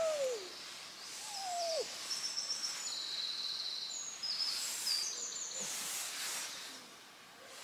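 Woodland birdsong: small songbirds singing quick high trills and warbles, with two short falling calls in the first two seconds.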